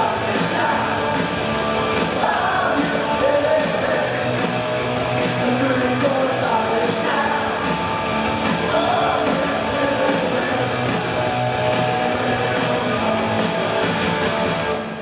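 Punk rock band playing live, with a male lead vocal over electric guitar, bass and drums with regularly struck cymbals.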